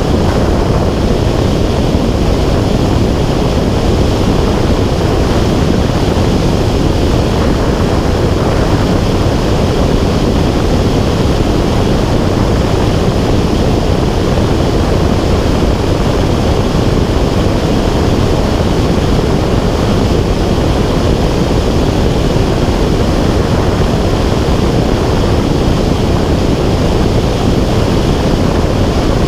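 Steady, loud rushing of wind buffeting the microphone of a camera in flight, heaviest in the low end and unchanging throughout.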